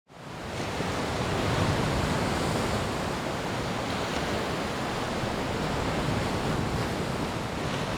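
Sea waves breaking and washing on the shore, a steady rush of surf that fades in at the very start.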